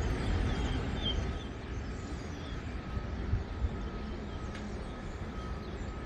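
Steady low rumble of distant traffic and construction-site noise heard from above an open building site, with a faint steady high whine and a few faint high chirps in the first second.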